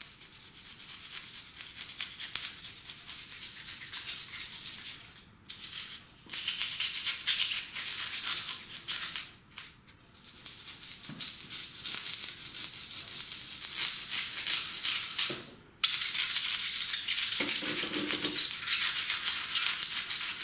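Polystyrene foam being scraped with a rasp: a dry, scratchy crunching made of rapid strokes. It stops briefly a few times.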